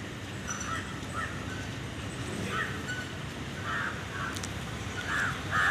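Crows cawing, a series of short harsh calls that come closer together and louder near the end, over a steady low background rumble.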